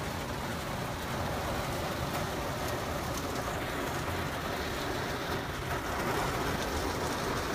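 Heavy rain pelting the roof and windows of a car, heard from inside the cabin as a loud, steady, even hiss.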